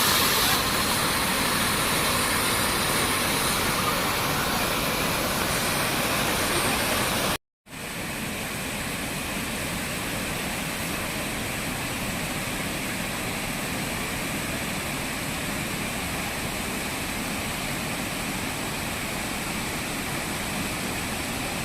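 Heavy floodwater rushing over a dam in spate, a steady, even noise of fast-flowing water. It drops out for a moment about seven seconds in and comes back a little quieter.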